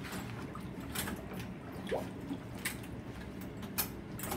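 Bathwater sloshing in a full tub as a child moves around lying in it, with scattered small splashes and drips.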